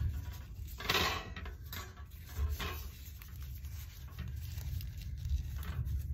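Thin plastic tablecloth strips crinkling as they are knotted onto a wire star wreath frame, with a few light clinks and taps of the wire frame, over a low steady hum.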